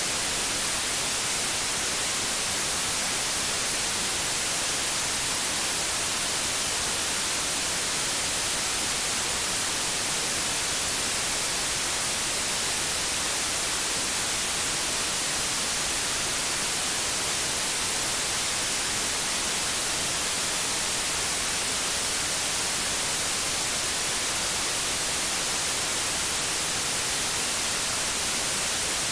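Steady white noise: an even, unchanging hiss, brightest in the high end.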